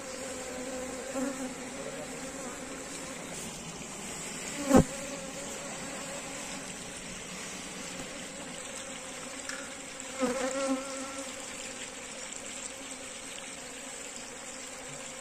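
A swarm of honeybees buzzing in a steady, many-winged hum. A sharp knock comes about five seconds in, and a brief louder swell of buzzing comes about ten seconds in.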